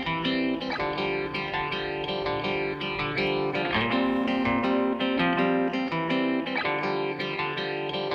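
Background music led by plucked guitar, with a light effect on the guitar and a steady rhythm of picked notes.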